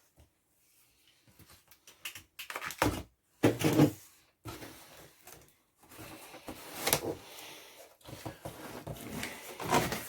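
Packing tape being pulled and ripped off a cardboard box and the box being worked open, in irregular rips, scrapes and knocks with louder bursts about a third of the way in and again in the second half.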